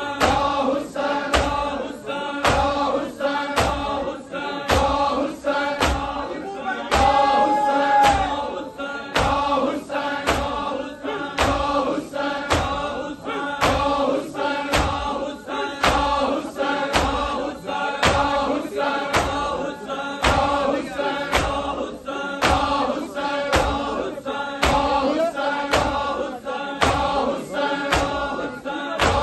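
A crowd of men chanting a Muharram mourning chant (noha) in unison, with rhythmic matam: open hands slapping bare chests in a steady beat, a little under two slaps a second, in time with the chant.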